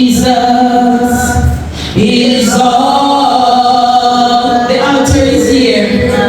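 Church congregation singing a worship song together, with long held notes and a short break about two seconds in.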